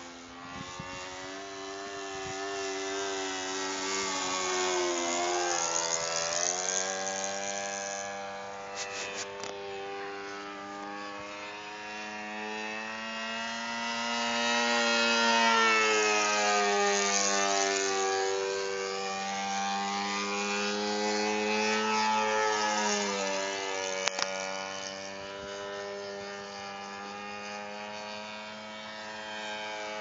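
Saito FA-82 Golden Knight four-stroke glow engine of a Super Decathlon model plane in flight, running steadily with propeller buzz. Its note swells and its pitch slides up and down, loudest about halfway through, and one sharp click comes about three-quarters of the way in.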